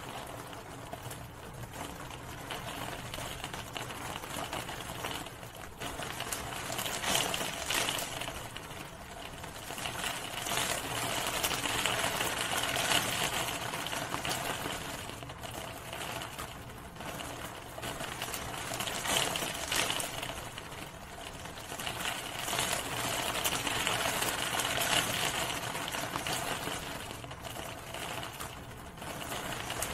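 Steady rain, many drops striking a hard surface in a dense rapid ticking, growing heavier and lighter in slow waves.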